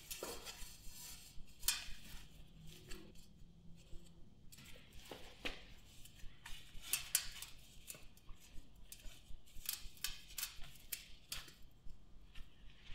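Ceramic wool insulation being packed into a steel tank by gloved hands: faint, irregular crackling and crunching of the fibre blanket, with many sharp little ticks and scrapes.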